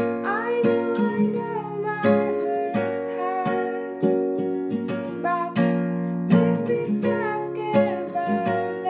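Acoustic guitar strummed and picked in a steady rhythm, with a voice singing a melody over it in two phrases.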